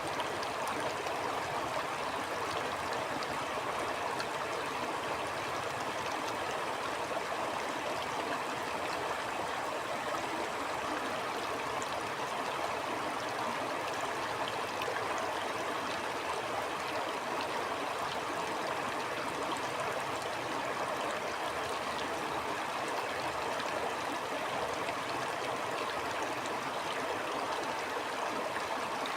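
Stream flowing steadily over stones, a continuous rushing and gurgling with small splashes.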